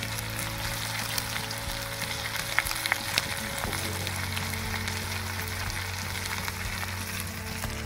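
Pork shoulder roast sizzling in its juices in an uncovered cast iron Dutch oven over a campfire: a steady sizzle with scattered sharp pops.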